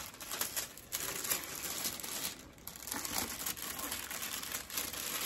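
Thin wrapping paper rustling and crinkling as hands pull it back from around a pair of shoes in a shoe box, with a brief lull about halfway through.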